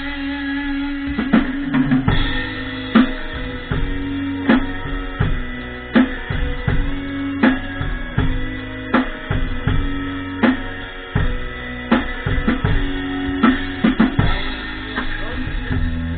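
Rock music led by a drum kit, with bass drum and snare under guitar, strong drum accents landing about every second and a half.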